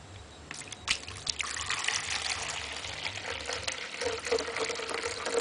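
Water poured from a jug into a drip coffee maker's reservoir: a few light clicks, then a steady trickling pour.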